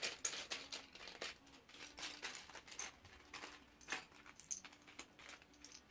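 Loose plastic Lego pieces clicking and clattering against each other in quick, irregular taps as they are gathered up by hand.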